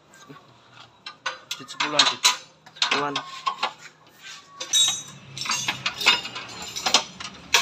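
Irregular metallic clinks and clanks of hand tools and metal parts being handled during a repair, some of them ringing briefly. A low steady hum joins about two-thirds of the way in.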